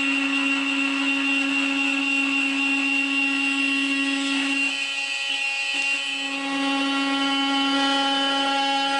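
Bosch GOP 250 CE corded oscillating multi-tool running with a steady, high buzzing whine. The tone falters and wavers for about a second and a half around five seconds in, then steadies again.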